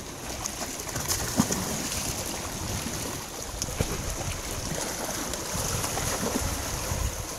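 Wind buffeting the microphone over sea swell washing against the rocks, with a short sharp click about a second and a half in and another near four seconds.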